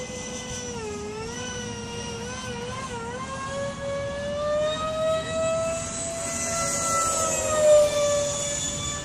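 Twin 70 mm electric ducted fans of a Freewing Su-35 RC jet whining in flight. The pitch wavers and dips with the throttle, then climbs and drops with a rush of air about seven to eight seconds in as the jet comes closer.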